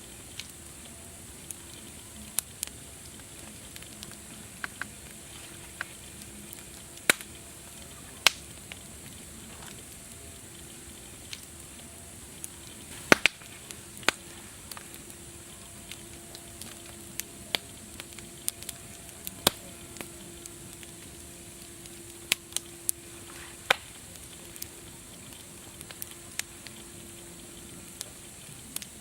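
Wood fire crackling: irregular sharp pops and snaps, some much louder than the rest, over a steady high hiss.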